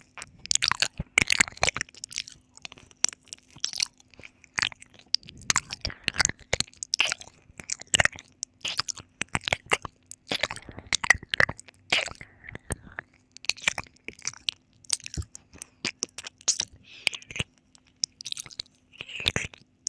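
Close-miked ASMR mouth sounds: wet clicks and smacks of tongue and lips coming irregularly, a few a second, over a faint steady hum.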